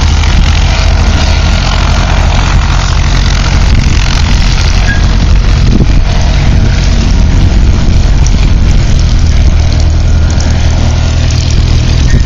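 Light aircraft's piston engine and propeller running steadily at low power, a loud, even drone.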